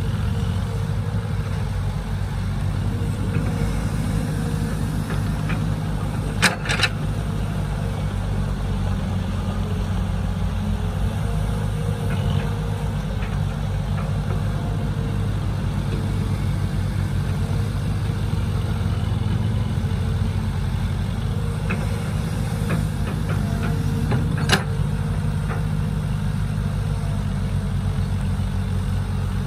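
Diesel engine of a Caterpillar hydraulic excavator running steadily as it digs and loads soil into a dump truck, a low, even drone. Two sharp knocks stand out, about eighteen seconds apart.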